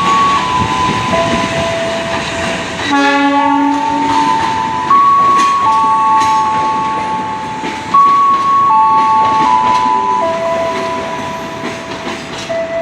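Train passing with a rumble, and a short horn blast about three seconds in. Through it plays a slow tune of single held notes that step up and down about once a second.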